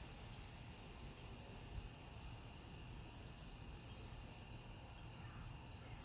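Night insects, crickets, chirring steadily and faintly, with a higher, shrill buzz that comes in for about a second and a half midway and again near the end.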